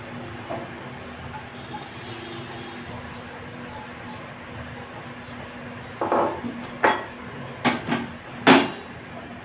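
Egg-vegetable batter frying in a hot oiled non-stick kadai, with a steady faint hiss. About six seconds in come five sharp metal clanks in quick succession as the pan is handled and knocked on the stove.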